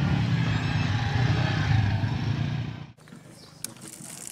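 Small motor scooter engine running loudly as it rides past close by, with traffic noise. It cuts off abruptly about three seconds in, leaving a much quieter background with a few light clicks.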